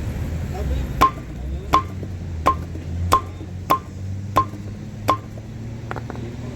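Seven sharp metal strikes, evenly spaced about 0.7 s apart, each ringing briefly with a clear tone, over a steady low hum.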